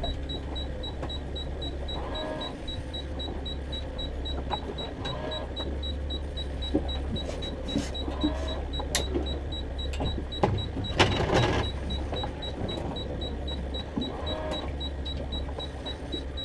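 Boat engine running with a steady low hum, overlaid by the mechanical whirring and clicking of a fishing reel being worked. A louder scraping burst comes about eleven seconds in.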